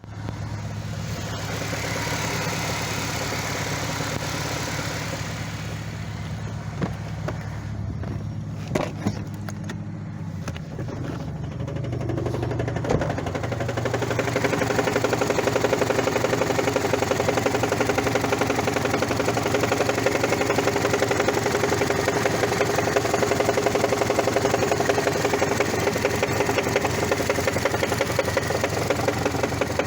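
Toyota 1ZZ-FE 1.8-litre four-cylinder engine running; about thirteen seconds in, a fast, steady metallic knocking sets in and carries on. The uploader traced the knock to a cracked, disintegrating flywheel.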